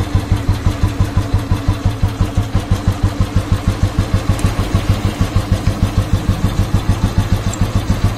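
Old Royal Enfield Bullet's single-cylinder four-stroke engine idling steadily, about five firing pulses a second, while its contact-breaker ignition timing is being set by the sound of the firing.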